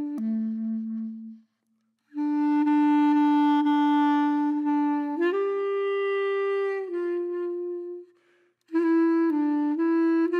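Background music: a slow melody of long held notes on a single wind instrument, breaking off twice for under a second.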